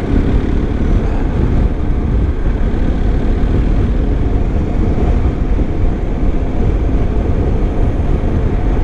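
Steady wind rush and engine noise of a BMW R1250 GS boxer-twin adventure motorcycle under way.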